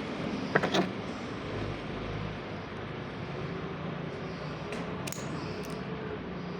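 A few quick clicks and taps of small parts being handled, the sharpest about half a second in, with fainter ticks around five seconds in, over a steady low hum.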